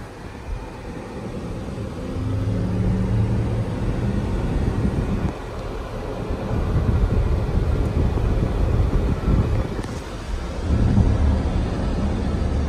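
Road and wind noise inside the cabin of a 2024 Acura ZDX A-Spec electric SUV at highway speed, with no engine sound: a low rumble that swells and eases a few times, with a faint hum.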